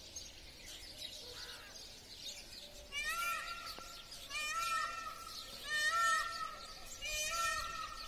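Indian peafowl (peacock) calling: from about three seconds in, four loud repeated calls come roughly one and a half seconds apart. Faint chirping of small birds is heard before them.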